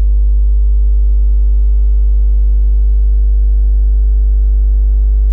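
Steady synthesizer drone as background music: a loud deep hum with sustained tones held above it, unchanging throughout.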